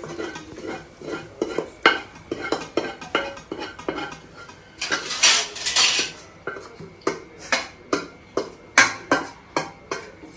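Metal spoon scraping fried vegetables out of a stainless steel pan into a steel bowl: a run of sharp clinks of spoon on steel, about two a second, with a longer scrape about five seconds in.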